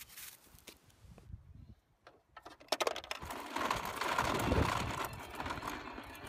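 Plastic Noo Noo pull toy rolling on its wheels as it is dragged over rough asphalt by its string, a continuous mechanical rattling and clattering that starts about two and a half seconds in, after a few faint soft sounds.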